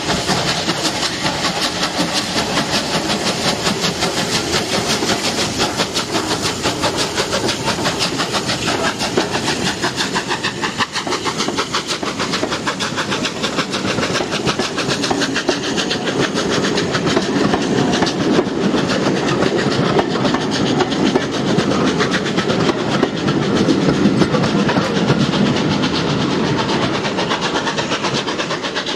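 Bulleid three-cylinder light Pacific steam locomotive 34070 working a train: a rapid, steady beat of exhaust chuffs with hissing steam, while the wheels of the coaches clatter over the rail joints as they roll past.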